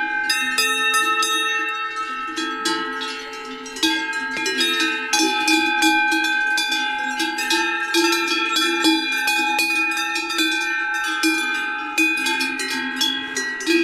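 Many metal bells of different pitches clanking irregularly, their tones overlapping and ringing on between strikes.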